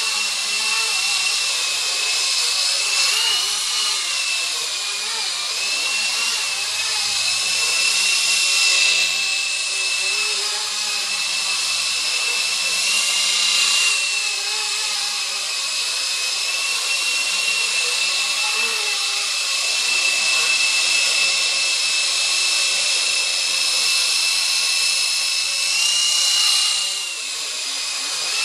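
Blade 120 SR micro RC helicopter in flight: a steady high electric-motor whine with the hiss of the spinning rotor blades, its pitch rising and dipping slightly as the head speed changes. The whine drops in level briefly near the end.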